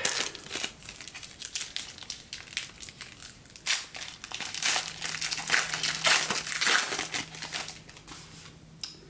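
Foil wrapper of a baseball card pack crinkling and crackling as it is torn open and handled, busiest in the middle.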